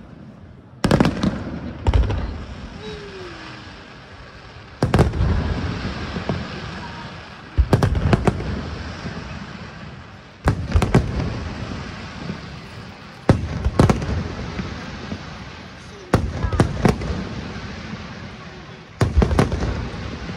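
Aerial firework shells bursting in a display: a loud bang every two to three seconds, several coming in quick pairs, each followed by a rumbling echo that dies away over a couple of seconds.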